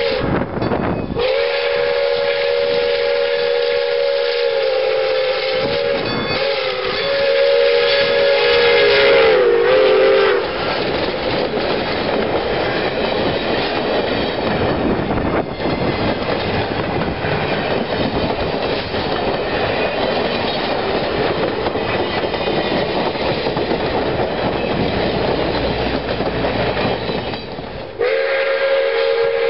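Pere Marquette 1225, a 2-8-4 Berkshire steam locomotive, blowing long chords on its steam whistle as it approaches, the pitch dropping as it passes about ten seconds in. Then comes a steady rumble and clatter of the locomotive and its passenger cars rolling by on the rails. Near the end the whistle blows again.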